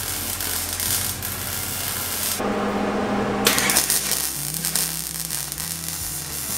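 Wire-feed (MIG) welder arc crackling and sizzling as a bead is laid on the kart's steel tube frame, stopping for about a second two and a half seconds in, then resuming.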